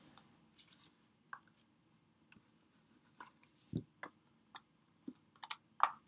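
Faint clicks and taps of cardstock being folded and pressed together by hand as the glued bottom flaps of a small paper box are closed, with one duller knock near the middle and a quick run of clicks near the end.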